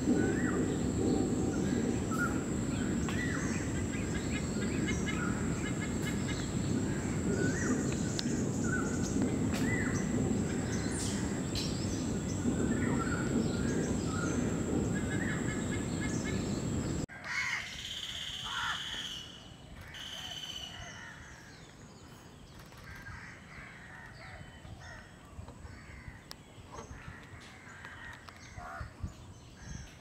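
Wild birds calling outdoors: many short calls over a steady low rumble and a thin, steady high whine. About halfway through the sound cuts to a quieter scene, with a few louder calls at first and scattered calls after.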